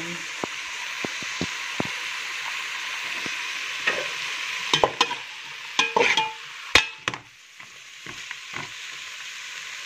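Vegetables and meat frying in tomato paste in a metal pot, with a steady sizzle. From about four seconds in, a metal spoon stirs and scrapes against the pot with a run of sharp clinks, and the sizzle softens about seven seconds in.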